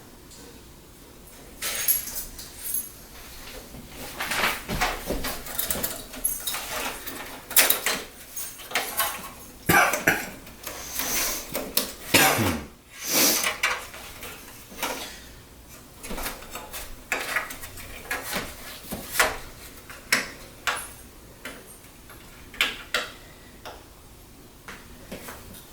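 Computer parts and cables being handled during a PC build: irregular clicks, knocks and light rattles of hard parts, with a longer scraping slide about halfway through.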